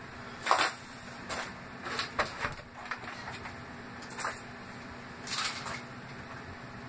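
A handful of short, irregular knocks and scuffs, the loudest about half a second in, over a steady low hum.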